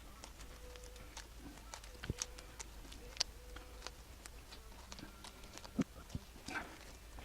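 Faint, irregular small clicks and handling noises from gloved hands kneading a piece of two-part epoxy putty.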